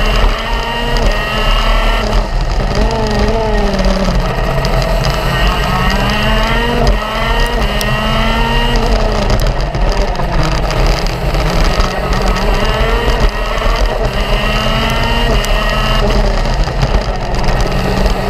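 Racing kart engine at full race pace, heard from a camera mounted on the kart: the pitch climbs for a few seconds down each straight and drops sharply under braking into the corners, several times over, with a low rumble from wind and chassis vibration underneath.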